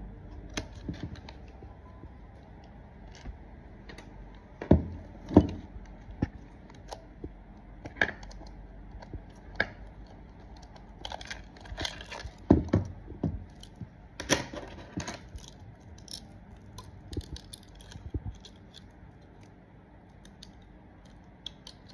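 A steel saw chain and guide bar being handled while the chain is fitted to a 6-inch mini chainsaw. The metal links clink and jingle among scattered clicks, with a few louder knocks.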